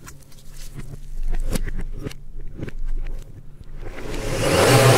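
A few knocks and clicks as a plastic blender lid is handled and fitted onto the jar, then about four seconds in the countertop blender's motor starts and runs loud and steady, churning the water in the jar.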